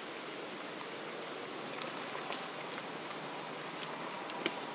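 Steady rain falling on wet ground: an even hiss with scattered small drop ticks and one sharper tick near the end.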